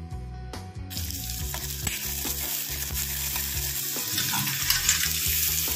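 Chopped almonds and pistachios sizzling as they roast in hot ghee in a steel pan, stirred with a steel spoon. The sizzle starts about a second in and grows louder after about four seconds.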